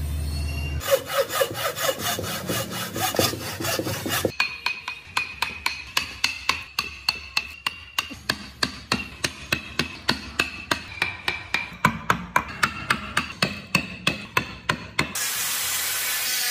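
Steel wood chisel driven into a hardwood block in rapid, regular blows, about three or four a second, each with a short ringing note as the chips split away. Near the end an angle grinder with a sanding disc starts on the wood with a loud, steady hiss.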